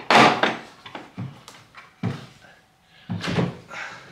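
Latches of a Milwaukee Packout rolling tool box snapping open and the plastic lid being handled: a string of sharp plastic clacks and knocks, the loudest right at the start and a cluster of them near the end.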